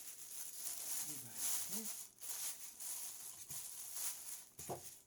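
Plastic packaging rustling and crinkling as a boxed collectible statue is pulled free, with a short knock near the end.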